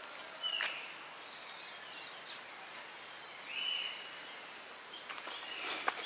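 Birds calling over a steady outdoor hiss: a short call near the start and a longer one a little past the middle, with a few faint chirps between. Footsteps begin near the end.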